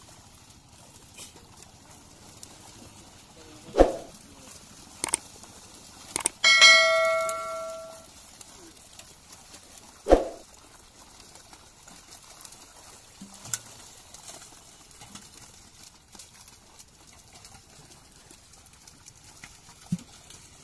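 Scattered sharp knocks and, about six seconds in, one metallic clang whose ringing tones fade out over a second or so. Between them the background is quiet.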